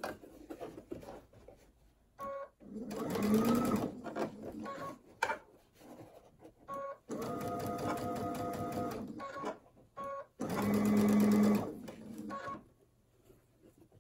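Baby Lock Intuition sewing machine stitching in stop-start runs while the seam is eased around a curve. There are three runs of a second or two each, the first speeding up as it starts, with a few single-stitch blips between them.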